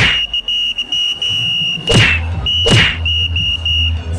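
A steady high-pitched tone over a low hum, broken by three sharp whacks: one at the start, one about two seconds in and one shortly after.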